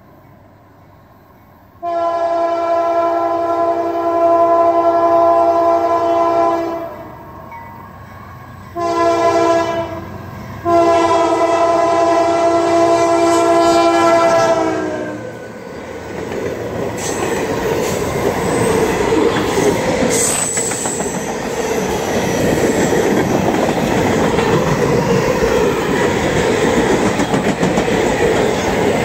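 CSX freight locomotive's five-chime K5LA air horn, which the owner calls fouled, sounds for the crossing in a long blast, a short one, then another long one. From about halfway through, the locomotive and boxcars roll past with steady wheel clatter, rail rumble and some brief wheel squeal.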